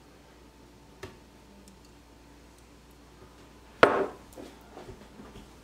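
A sharp knock of a cup or dish being set down on a kitchen countertop just under four seconds in, followed by a few light clicks and taps of kitchenware.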